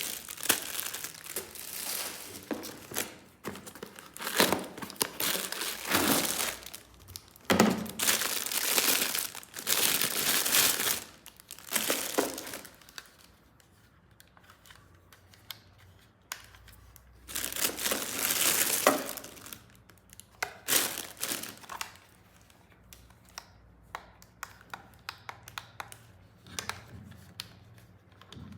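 Plastic packaging crinkling and tearing in long rustling bursts as a toy set is unwrapped, followed by scattered light clicks and taps of hard plastic parts being handled.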